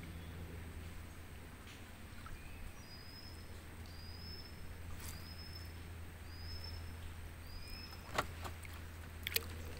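A bird's short high whistled call repeated about once a second over a steady low rumble, with two sharp knocks near the end.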